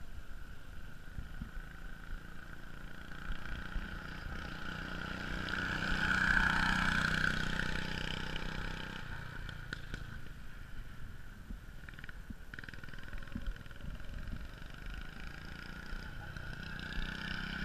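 Go-kart's 6.5 hp Honda single-cylinder four-stroke engine, fitted with a racing exhaust, running steadily on the road. The engine note swells about six seconds in as the kart passes, fades into the distance, and builds again near the end as it comes back.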